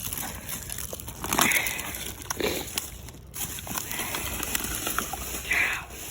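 Digging through dump dirt and debris by hand: scraping and scattered clicks and knocks of buried junk being moved, with a louder scrape about a second and a half in and another near the end.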